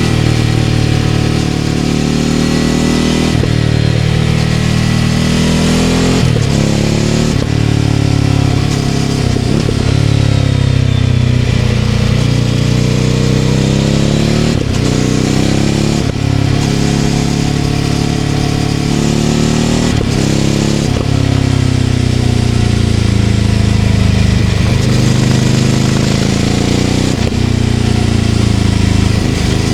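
Ducati Scrambler 800's air-cooled L-twin engine through a Leovince LV-10 exhaust, under way on the road. The engine note sinks and climbs again and again as the throttle is closed and opened, with short breaks several times as it shifts or rolls off.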